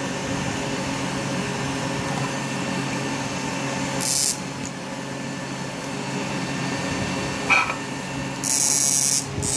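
Electric fishing machine (a high-power inverter) running on the test bench: a steady hum and whir from its cooling fan and transformer. A short burst of high hiss comes about four seconds in, a sharp click a few seconds later, and a longer hiss near the end.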